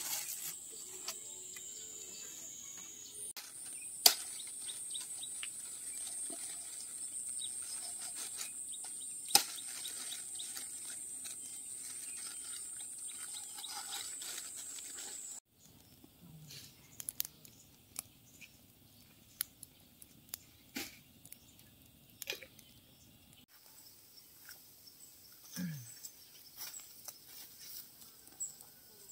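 Steady high-pitched insect buzz with scattered clicks and two sharp knocks. About halfway through it cuts off suddenly, leaving quieter scattered clicks and ticks.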